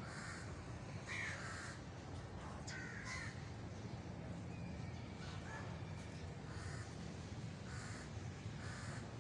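Crows cawing: repeated short, harsh caws about once a second over a low, steady background rumble.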